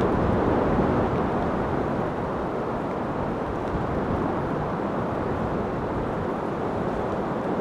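Strong wind blowing as a steady rush.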